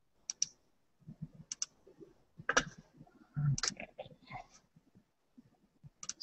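Clicks of a computer mouse and keyboard, several coming in quick pairs like double-clicks.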